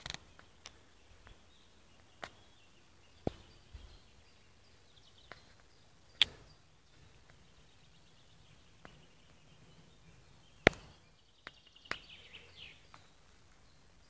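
Scattered sharp clicks and knocks every second or two, the loudest about six and about ten and a half seconds in, over faint high chirping that warbles briefly near the end.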